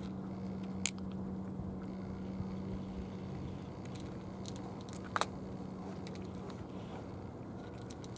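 Two cats crunching dry kibble from plastic bowls: a run of small crisp crunches, with a sharper one about a second in and another about five seconds in, over a steady low hum that fades out near the end.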